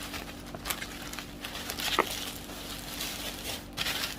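Plastic parcel packaging rustling in irregular swishes as it is opened by hand, with a sharp click about two seconds in.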